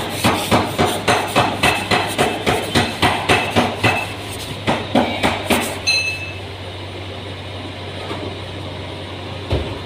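Rapid metallic tapping on a car's sheet-metal door panel, about four strikes a second, then slowing and stopping about six seconds in, over a steady low hum.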